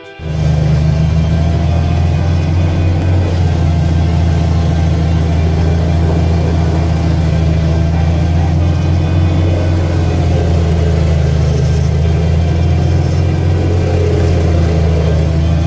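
Zetor 14245 tractor's diesel engine and the PTO-driven Junkkari HJ 500 wood chipper running steadily under load during chipping, heard from inside the tractor cab: a loud, even, low drone.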